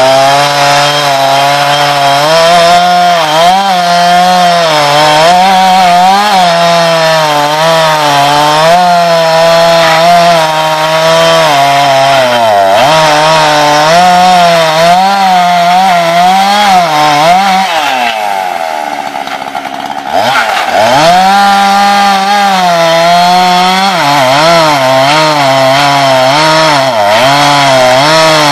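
Jonsered two-stroke chainsaw cutting through a pile of boards at high throttle, its engine pitch wavering down and back up as the chain bites into the wood. About two-thirds of the way in it drops to a lower, quieter idle for about two seconds, then revs back up and keeps cutting. The saw is running again after a replacement ignition coil was fitted.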